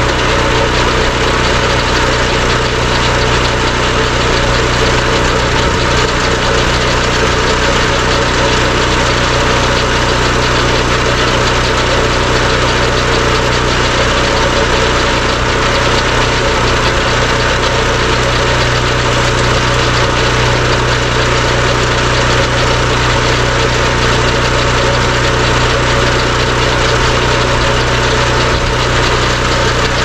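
An engine running steadily at idle, unchanging throughout, with no sawing heard.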